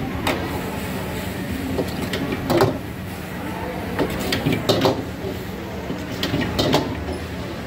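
Metal ladle scraping and clanking against a steel wok as fried cauliflower is stirred and tossed. It gives irregular sharp strikes, often in quick pairs, over a steady low rumble.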